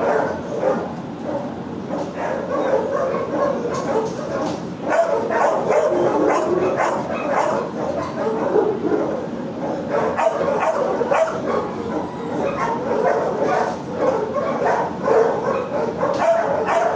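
Many shelter dogs barking and yipping at once in their kennels: a constant, overlapping hubbub with no pause.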